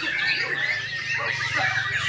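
White-rumped shamas (murai batu) singing together in a dense, overlapping chorus of quick whistles and chattering phrases, with a low steady hum beneath.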